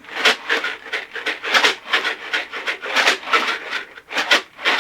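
Dried beans rattling in a sealed card box shaken rhythmically, a foley imitation of a train running on the rails. The rattle surges in a steady chugging rhythm of about two to three beats a second.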